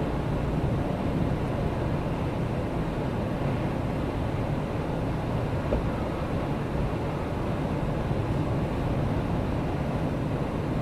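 Steady blizzard wind rumbling and rushing on the microphone as a continuous low roar, without a break.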